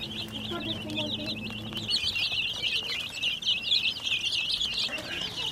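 Many domestic chicken chicks peeping continuously, a dense chorus of overlapping high-pitched cheeps.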